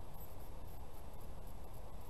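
Steady low background noise with nothing distinct in it, no voices and no clear impacts.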